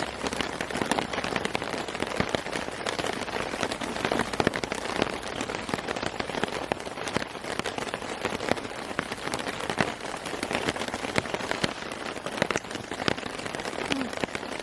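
Steady rain, with many separate drops striking close by on a hard surface.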